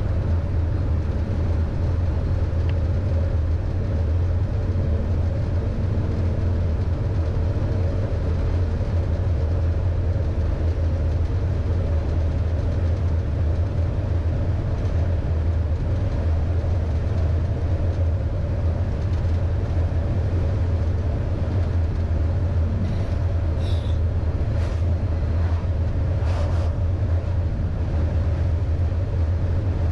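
MAN LE280B 4x4 truck's diesel engine and tyres on a wet road making a steady low drone while cruising. A few faint short ticks come in about three-quarters of the way through.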